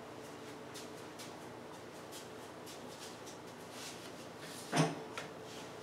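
Quiet room tone with faint small clicks of hands moving on a tabletop, then one short knock about five seconds in.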